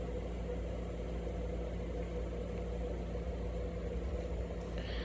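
Steady low mechanical hum, like a motor or appliance running, with a faint higher tone held over it and no distinct knocks or clicks.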